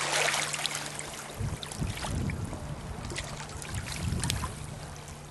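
Small waves lapping and trickling at a lake's edge, with low rumbles about a second and a half in and again near four seconds.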